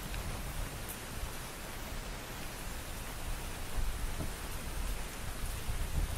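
Steady hiss of rain falling on trees and grass, with uneven low rumbling from wind on the microphone.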